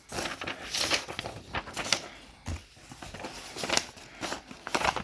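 Packing material in an opened shipping box crinkling and rustling as it is handled, a run of irregular crackles.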